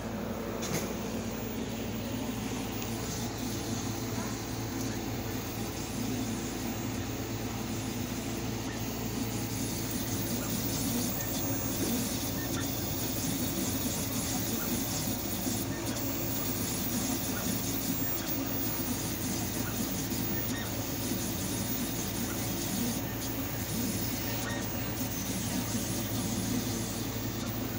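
Pet ID tag engraving machine running, its engraving head working on a bone-shaped tag with a steady mechanical hum and whir.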